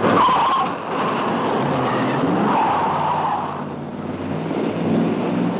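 Police cars pulling away fast, engines revving and tyres squealing. The sound starts suddenly and is loudest over the first few seconds, then eases off.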